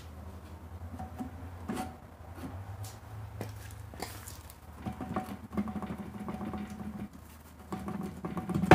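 Toyota axle shaft and brake drum being pulled and wiggled out of the axle housing: metal rubbing and scraping with light clicks over a low hum, ending in a sharp clunk.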